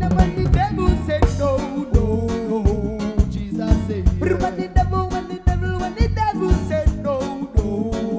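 Live reggae band playing, heard from right beside the drum kit: regular sharp drum and cymbal strikes over a heavy bass line, with a melody wavering above.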